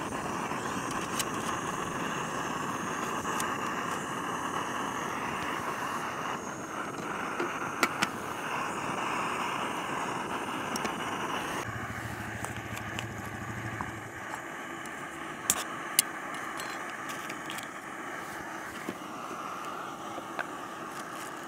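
Fire Maple canister camp stove burning, its gas burner hissing steadily under the pot of water being heated. A few light clicks and knocks come from the pot and lid being handled, and a low hum comes in for about two seconds midway.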